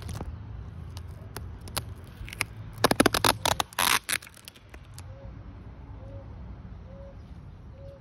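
Clicks, knocks and scraping from a phone camera being handled and set in place, densest about three seconds in. Then a faint short bird note repeats about once a second.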